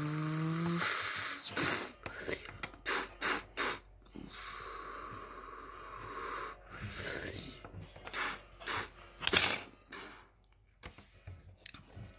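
Plastic LEGO bricks and figures clicking and knocking on a wooden tabletop as they are handled, with a short rising hum at the start and a steady hiss for a couple of seconds in the middle.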